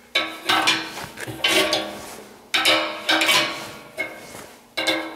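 A wrench and steel pipe fittings clanking and clinking as a threaded valve fitting is worked loose from a galvanized pipe tee: a string of sharp metallic knocks, each ringing briefly.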